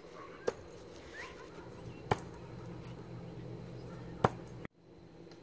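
Three throwing knives thrown no-spin striking a wooden target board, each a sharp thunk, one every couple of seconds, the last the loudest.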